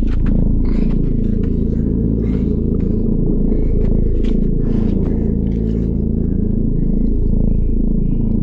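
A loud, deep rumbling drone run through a sweeping flanger-like effect, its tone swooshing up and down about every two seconds, with light scrapes and clicks over it.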